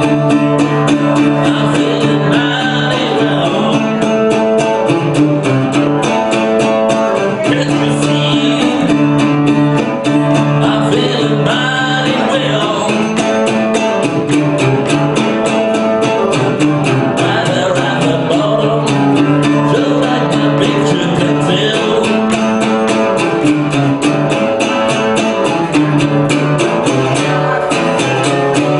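Solo blues guitar played live: an instrumental passage with a repeating bass-note pattern under the melody and a steady beat.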